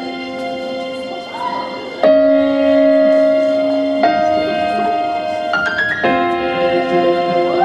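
Music: slow held chords that change about every two seconds, with a quick rising run of notes about five and a half seconds in.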